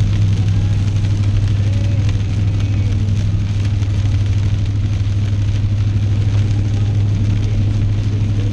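Steady low drone of a car driving, heard from inside the car, with rain pattering and crackling on the body and windscreen.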